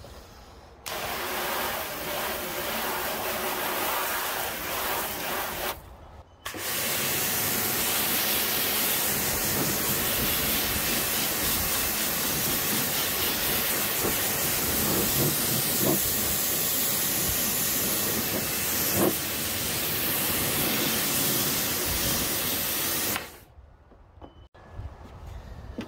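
Pressure washer jet hissing as it rinses water over a car door panel. There are two bursts: one of about five seconds, a short pause, then a long steady spray that stops near the end.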